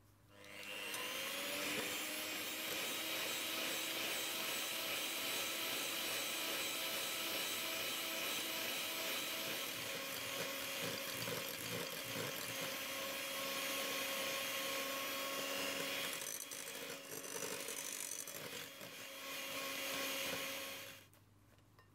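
Electric hand mixer whipping cream in a glass bowl, its motor whine rising as it spins up and then running steadily. The cream is being beaten to a stiff, firm stage for filling. The sound wavers for a few seconds near the end, picks up again and then cuts off.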